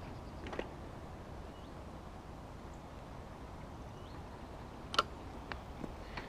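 Bicycle riding along a path: a steady low rumble of tyres and air, with a few light clicks and rattles from the bike and one sharper click about five seconds in.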